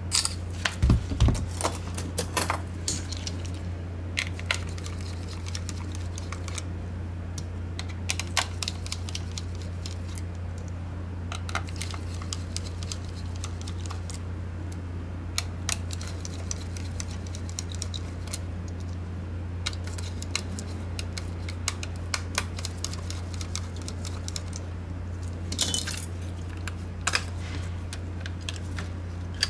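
Irregular small clicks and taps of a screwdriver and plastic parts as a Logitech G604 wireless gaming mouse is unscrewed and its side panel taken off, with tiny screws set down on a silicone mat; a cluster of louder clicks comes in the first few seconds. A steady low hum runs underneath.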